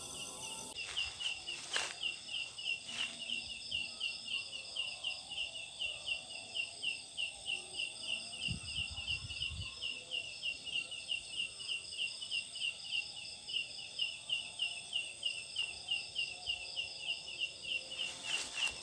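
Night call of a leaf insect (Phyllium pulchrifolium), the 'ciang ciang' call: a short, shrill chirp repeated evenly about three times a second, over a steady high buzz of other night insects. A brief low rumble comes about nine seconds in.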